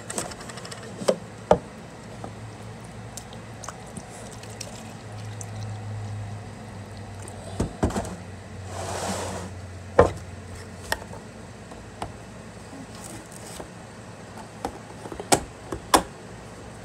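Handling noises around a plastic gallon milk jug: scattered sharp clicks and knocks, one of them as a hand grips the jug near the end, with a short hissing rush about nine seconds in and a low hum through the first half.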